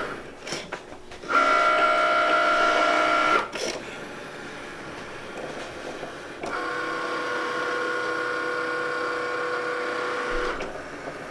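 Cricut Maker cutting machine's motors whining as it draws with a pen, driving the carriage and the mat. A loud whine of several steady tones lasts about two seconds, starting about a second in; it drops back, then a second steady whine starts past halfway and stops shortly before the end.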